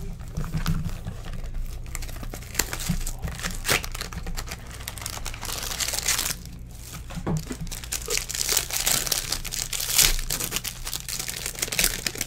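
Plastic wrapper of a trading-card pack crinkling and tearing as it is opened by hand, with cards being handled, in irregular crackles and small clicks, loudest about ten seconds in.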